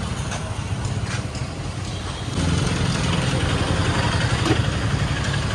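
Street traffic with a motor vehicle engine idling, a steady low hum that grows louder about two and a half seconds in. A few light knocks come near the start.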